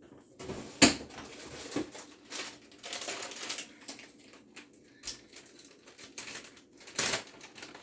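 Hands grabbing and scattering handfuls of shredded cheese: an irregular run of rustles and light clicks, the sharpest about a second in and again near the end.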